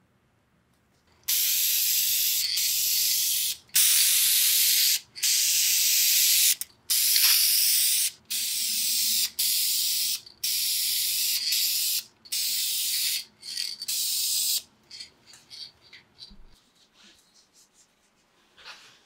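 Spray paint hissing out in about ten bursts of roughly a second each, with short pauses between them, as a part is painted; the spraying stops a little before the end, leaving a few faint clicks.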